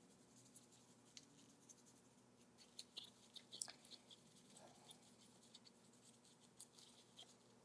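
Faint scratchy dabbing of a small paintbrush working antiquing gel into the crevices of a cast resin rose, in quick short strokes that cluster about three to four seconds in.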